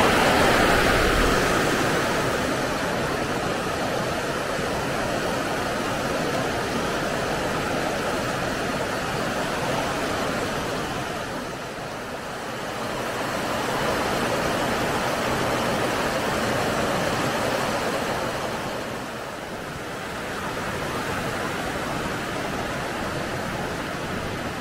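Rushing water of a rocky mountain stream: a steady, even rush that dips slightly twice, about halfway and again near the end.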